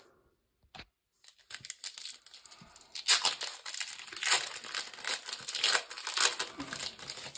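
A Pokémon TCG Brilliant Stars booster pack's foil wrapper being torn open and crinkled by hand. The crackling starts about a second and a half in and keeps going.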